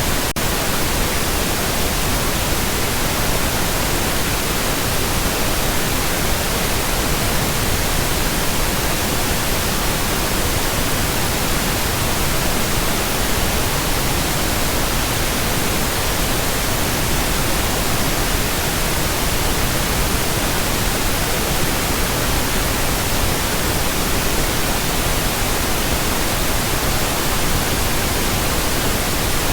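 Pink noise: a steady, unchanging hiss spread evenly across the whole range from deep rumble to high hiss.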